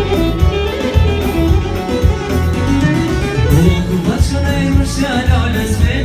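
Amplified live Albanian wedding band music, with a steady pulsing bass beat under a melodic lead line.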